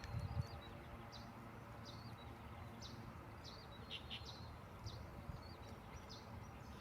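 Small birds chirping faintly: short high chirps repeating every half second or so, over a low steady rumble.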